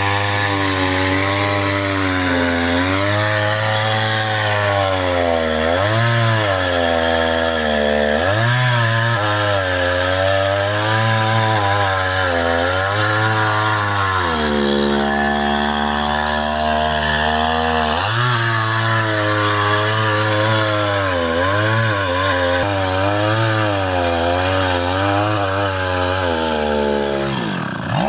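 A two-stroke chainsaw cutting into a tree trunk. The engine pitch dips and climbs back again and again as the chain labours in the wood, and runs higher and steadier for a few seconds midway.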